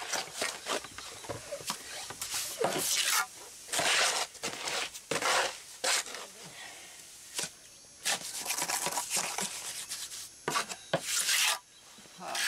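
Trowel scraping and scooping cement patch mix in a mortar tub and working it into the concrete edge: about a dozen short scrapes at an uneven pace.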